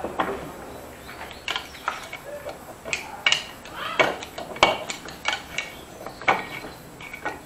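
Steel screwdrivers clinking, tapping and scraping against a Honda motorcycle engine's aluminium crankcase as the case halves are pried apart: irregular sharp metal clinks, a few louder ones near the middle.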